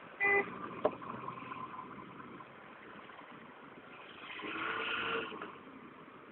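Sneezing: a short, sharp sneeze just after the start, then a longer sneeze about four seconds in.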